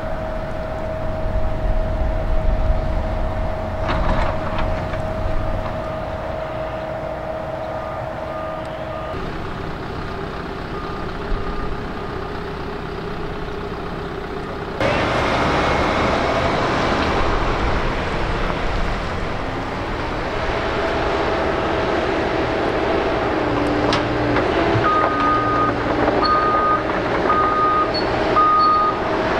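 Diesel engines of heavy construction machinery, excavators and trucks, running steadily; the sound changes abruptly about halfway through. A backup alarm beeps about once a second near the end, with fainter beeping earlier on.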